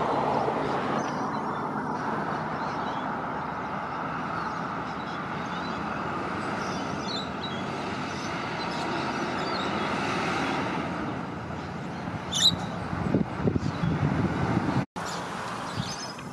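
Road traffic: cars and trucks driving past, with no siren. A heavier vehicle's engine rumble and a few sharp knocks come about thirteen seconds in, then the sound cuts off abruptly.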